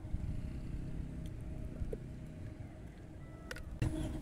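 Low, steady rumble of a motor vehicle engine going by, with two sharp clicks near the end.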